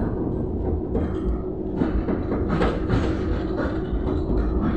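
Tram running along the track, heard from inside the car: a steady low rumble with a faint steady hum, and the wheels and body knocking and rattling several times.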